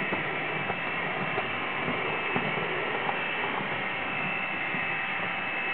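Model freight train running on layout track: a steady mechanical whir with a hum and a few faint irregular clicks from the wagons' wheels on the rails.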